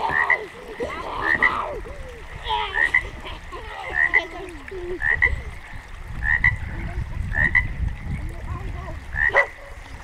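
Frogs croaking in a chorus: a short high call repeats about once a second over a tangle of lower croaks that bend up and down in pitch. A low rumble joins in during the second half.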